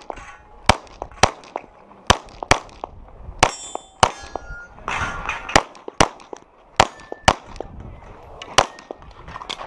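Glock pistol firing a rapid string of shots, roughly two a second with short pauses between groups. Several hits are followed by the brief ringing clang of steel targets.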